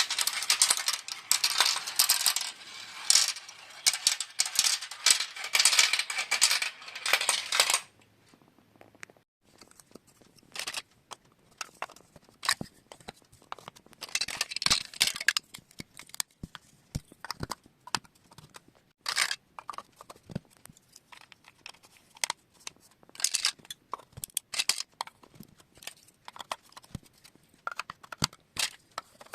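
Marbles clattering through a plastic marble run: a dense rattle of many quick clicks for about the first eight seconds that stops abruptly, then scattered single clicks and clacks.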